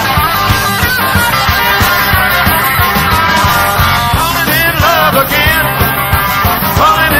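Live rock-and-roll band playing an instrumental passage, drums and bass keeping a steady beat. About halfway through, a lead line bends up and down in pitch.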